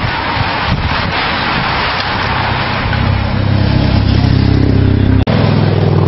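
A bunch of road racing bicycles rushing past close by in a wash of wind and tyre noise, followed by a following van's engine drawing near, its low hum growing louder. The sound cuts out for an instant near the end.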